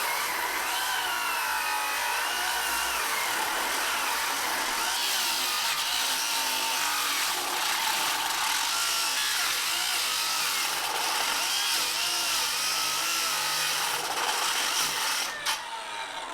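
Circular saw ripping a long 2x10 board lengthwise, its blade missing a couple of teeth from cutting through nails. Its whine wavers in pitch as the load on the blade changes; near the end there is a sharp click and the saw winds down.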